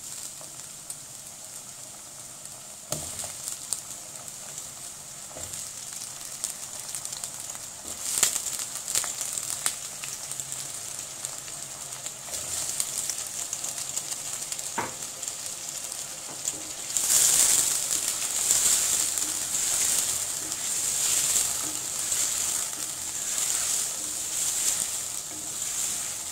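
Cubed potatoes dropped into hot oil in a stainless steel pot, the sizzle growing louder in steps as more pieces go in. From about two-thirds of the way through, a wooden spoon stirs them and the sizzle swells and eases about once a second with the strokes.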